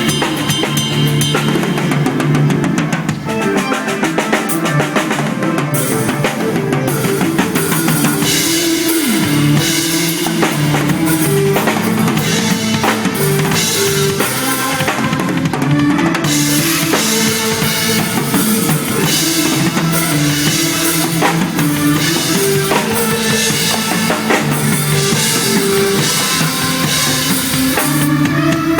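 Drum kit played with busy bass drum, snare and rimshot strokes over a backing track with sustained pitched melody notes.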